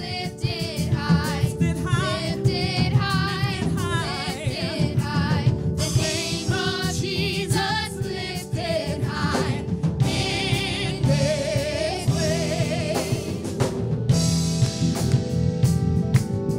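Live gospel song: a woman's lead vocal with wide vibrato, over sustained keyboard chords, bass guitar and drums.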